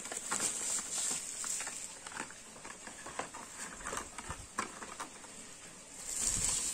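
Plastic bubble wrap being handled and crumpled, crinkling and crackling irregularly, loudest in the first second or so and again near the end, with a couple of dull low thumps in between.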